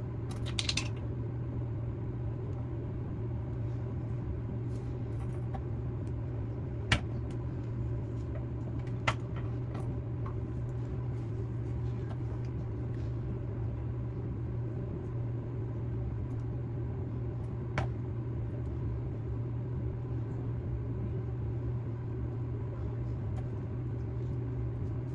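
A steady low hum, with a few sharp clicks or taps, three in all.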